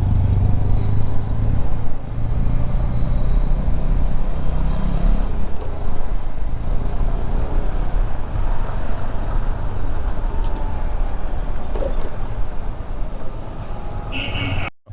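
Motorcycle engine running, with a steady low hum and road and wind noise. The sound cuts off abruptly near the end.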